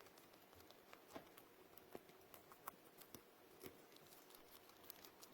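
A small pet chewing food: faint, irregular crunching clicks, a few a second and unevenly spaced.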